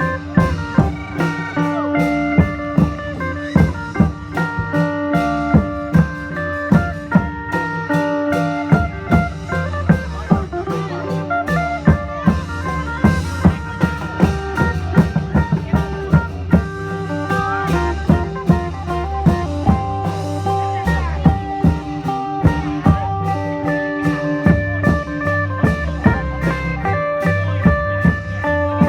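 Isan music: a phin lute plucks a quick melody over a held drone note, backed by a steady drum beat.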